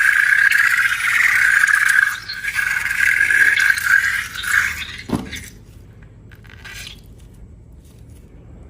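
Rubber balloon squealing loudly as air escapes through its stretched neck. The squeal ends with a quick falling pitch about five seconds in, as the balloon empties, followed by faint handling sounds.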